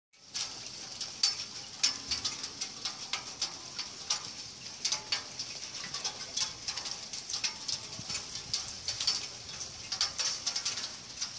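Rain: a light hiss with many irregular, sharp ticks of drops landing close by.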